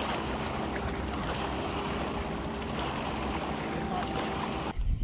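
Steady hiss of wind and lapping water on an open bass boat deck, with a faint steady hum underneath. It cuts off abruptly near the end.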